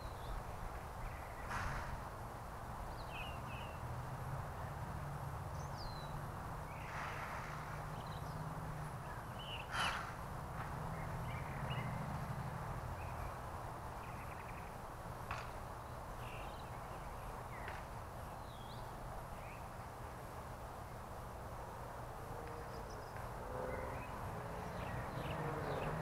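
Wild birds calling: a few short, harsh caw-like calls, the loudest about ten seconds in, among scattered short high chirps, over a steady low rumble. Near the end a vehicle's sound grows louder.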